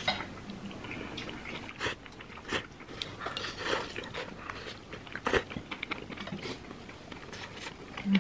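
A person eating hot creamy jjamppong noodles: slurping them in and chewing, with many short clicks and smacks.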